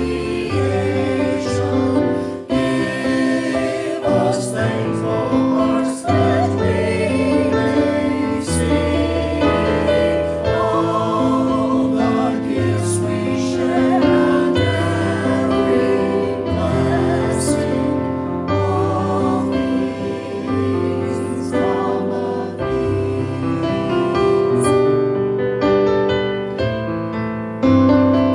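A church choir singing with piano accompaniment.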